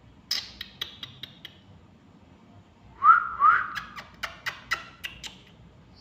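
A pet parrot chirping and clicking in short sharp bursts, then giving two quick rising whistles about three seconds in, the loudest sounds, followed by a run of sharp chirps.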